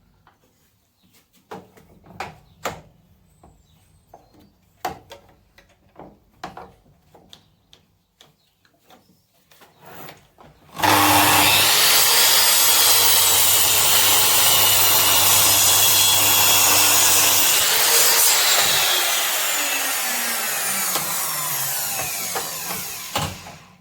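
Electric power saw cutting 5x2 timber: after a series of knocks and taps from handling the wood, the saw starts abruptly about eleven seconds in, runs loud and steady for about seven seconds, then winds down with a falling pitch over several seconds.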